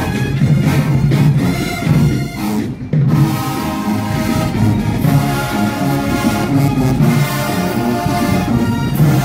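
Marching band playing loud brass with drums. A brief break comes about three seconds in, and the band then holds sustained brass chords.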